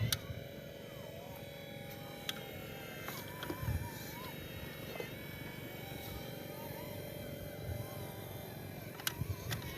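Small electric motors and gearboxes of radio-controlled construction models whining, the pitch stepping up and holding for a second or two, then dropping back, several times. A few sharp clicks are heard, including a cluster near the end.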